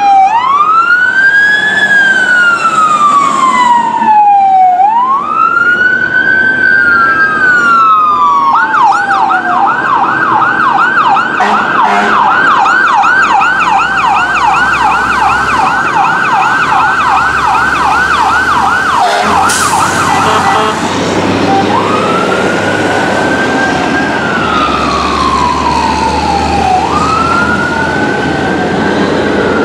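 Electronic emergency siren on fire apparatus, over the low noise of passing engines. It wails up and down about every three seconds, switches to a rapid yelp of roughly three sweeps a second for about twelve seconds, then goes back to the wail.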